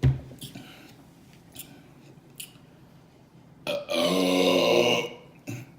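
A person lets out one long, loud burp of over a second, brought up by drinking carbonated soda. It comes a little past halfway, after a short low thump at the start and a few faint clicks.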